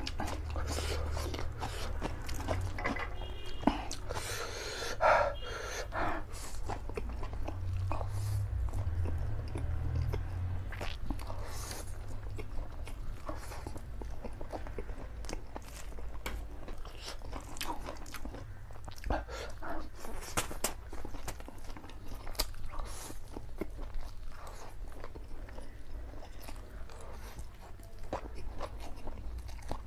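A person eating saucy black bean instant noodles: slurps as forkfuls are drawn into the mouth, and wet chewing with many short clicks and smacks, over a steady low hum.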